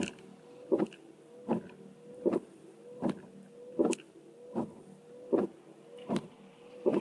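Car windscreen wipers sweeping back and forth in rain: the wiper motor whines steadily, with a sharp knock at the end of each stroke, about every three-quarters of a second.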